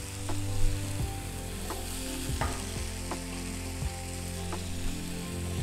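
Garlic-chili sauce, just thinned with a splash of water, sizzling and bubbling in a non-stick frying pan over a gas flame, with scattered small pops.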